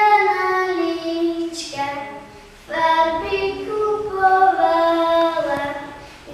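A young girl singing solo, unaccompanied: two sung phrases with a short break for breath about two seconds in, the second fading near the end.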